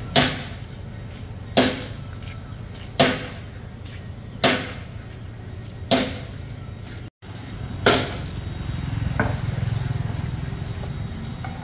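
Six heavy knocks, evenly spaced about one every second and a half, each with a short ring-out, typical of chopping or hammering. After the last knock, a low, steady engine rumble rises.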